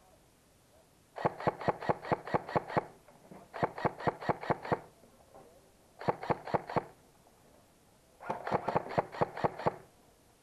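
An airsoft gun firing four bursts of rapid shots, about seven a second, each burst lasting one to one and a half seconds.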